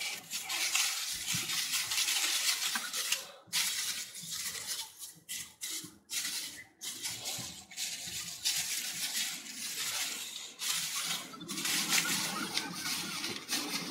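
Gloved hands working hair-toning balm through hair: a wet rubbing and rustling noise that stops and starts with short pauses.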